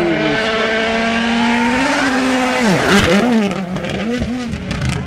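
Rally car engine at high revs, holding a steady note for about two seconds. Then the pitch drops sharply and the revs rise and fall several times in quick succession, with short crackles among them.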